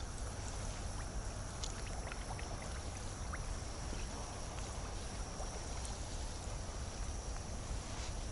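Outdoor ambience by the water: a steady low rumble of wind on the microphone, with a thin, steady high-pitched drone and a few faint scattered ticks.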